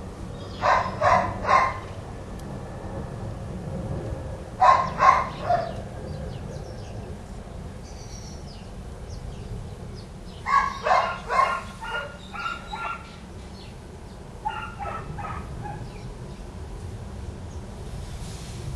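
Dogs barking in short runs of three to five barks, five runs in all, over a steady low rumble.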